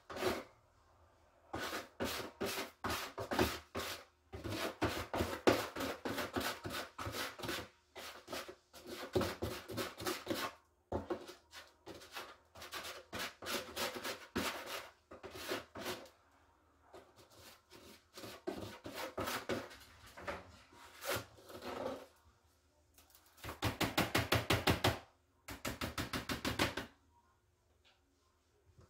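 Plastic slotted litter scoop scraping and sifting through granular cat litter in a plastic litter box, in repeated runs of gritty scraping and rattling strokes. Near the end come two quick, even runs of rattling strokes.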